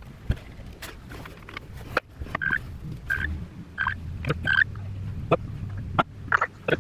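Car running with a steady low rumble, scattered clicks and knocks, and a few short high chirps in a row near the middle.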